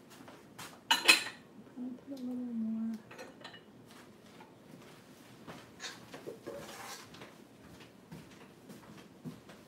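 A metal utensil clanking against a metal mixing bowl and scraping as chocolate buttercream is scooped and spread on a cake, with two sharp clanks about a second in, then scattered lighter taps and a short scrape. A low hum, dropping slightly in pitch, lasts about a second around the two-second mark.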